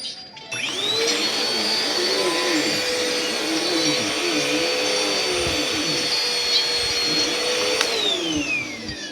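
Vacuum cleaner switched on about half a second in, running steadily with a high motor whine over the rush of air, then switched off near the end, the whine falling in pitch as the motor winds down.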